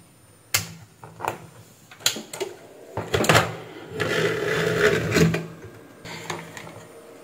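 Handling noise on a workbench: a few separate sharp clicks and knocks, then about a second of rustling and scraping, as an oscilloscope probe and its ground clip are hooked up to an amplifier circuit board.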